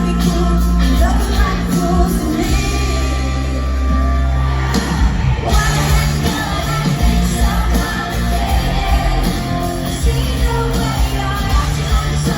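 Live pop-rock music: a band playing with a singer.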